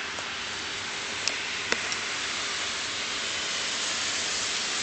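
Steady, even hiss of background noise that grows slightly louder toward the end, with two faint short clicks between one and two seconds in.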